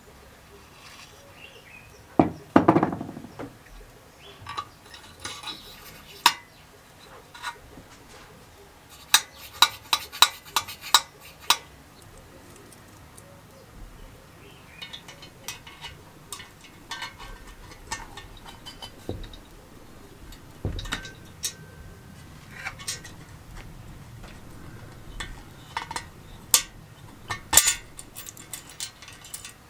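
Metal engine parts and hand tools clinking and knocking as they are handled and set down during assembly of a Kohler K301 engine: a heavier knock a couple of seconds in, a quick run of light clicks around the middle, and scattered clinks through the rest.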